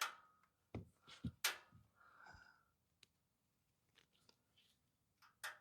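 A few faint clicks and taps from handling the plug and machine, with no hum or buzz when power is applied: the replacement bridge rectifier powers up quietly.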